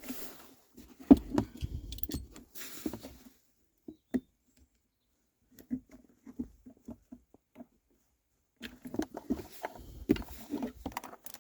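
Hands working on plastic and metal parts of a car's gear selector assembly: irregular clicks, taps and rattling handling noise. It comes in two busy spells, with a quieter stretch of scattered light taps in the middle.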